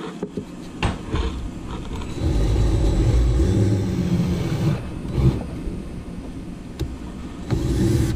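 Knocks and clicks of a screwdriver and hand working a screw inside a hollow plastic kayak hull, through the deck hatch. A low rumble runs from about two seconds in to about five seconds, and again briefly near the end.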